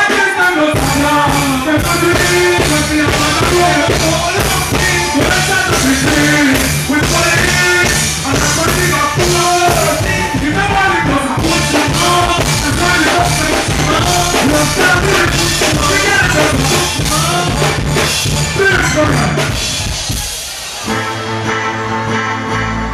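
Dancehall vocalist singing live into a handheld microphone over loud dancehall backing music with a steady bass line, heard through a stage sound system. About twenty seconds in, the vocal and music break off briefly and a different backing track starts.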